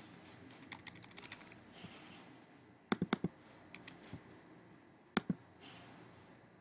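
Typing on a computer keyboard: a quick run of light keystrokes, then a few louder clicks about three seconds in and a double click about five seconds in.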